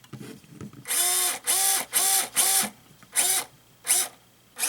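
An FMS 1/18-scale Toyota FJ Cruiser RC crawler whirring in short bursts, about six in quick succession. Each burst rises and falls in pitch, like a small electric motor spinning up and back down.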